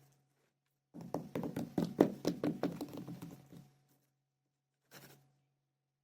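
Kinetic sand being patted and tapped into shape: a quick run of dull taps and knocks, about five a second, for roughly two and a half seconds, then one short soft sound near the end.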